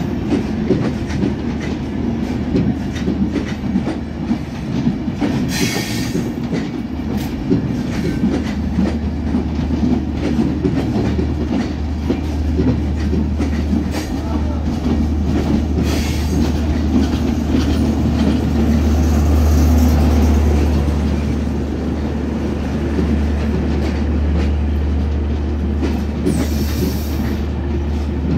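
Bangladesh Railway intercity passenger coaches passing close by at speed: a steady, loud rumble of wheels on rails with a clickety-clack over the rail joints. There are three brief high screeches, about six seconds in, around sixteen seconds and near the end.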